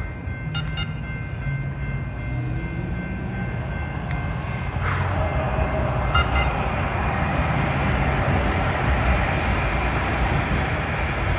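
Valley Metro light rail train running through a street-level crossing. The rolling noise of wheels on rail swells about five seconds in, as the train reaches the crossing, and holds steady while it passes. Before that, a faint whine rises and falls.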